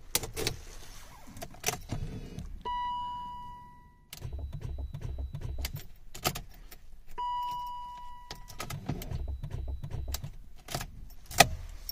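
Ignition keys rattling and clicking, a steady warning chime from the dash twice, and after each chime the starter of a BMW 740's 4.4-litre V8 labouring in a short, failed attempt to crank: the battery is too weak to start the engine.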